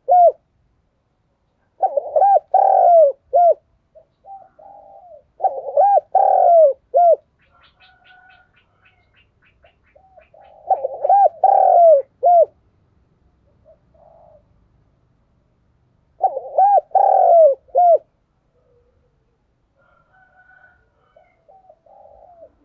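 Spotted dove cooing: four phrases of several short, arched coos each, about five seconds apart, with faint chirping between them.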